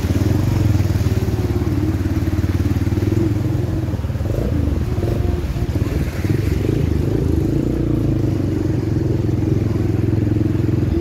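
Motorcycle engine running steadily, heard from on the bike as it rides through floodwater.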